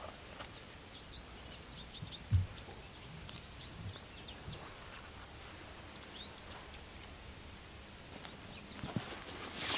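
Woodland ambience with a small bird chirping in quick runs of short high notes, and a single low thump about two seconds in, the loudest sound, with a softer one near the end.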